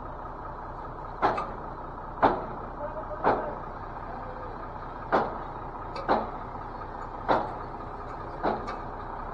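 A heavy truck's engine running steadily, with about eight sharp knocks spaced roughly a second apart.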